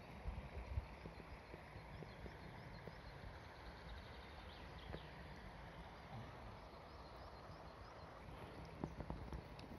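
Shallow forest stream running over stones, a faint steady rushing, with a few footsteps on stony ground about half a second in and again near the end.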